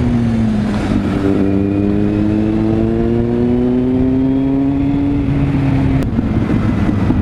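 Kawasaki Z800 inline-four motorcycle engine running under way, its pitch rising slowly as the bike gains speed. A brief click comes about six seconds in, after which the note changes.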